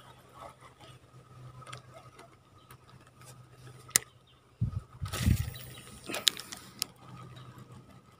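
Spinning reel being cranked to retrieve a fishing lure, its gears giving a light run of ticks with a few sharp clicks. About halfway through come dull handling thumps, the camera rubbing against clothing.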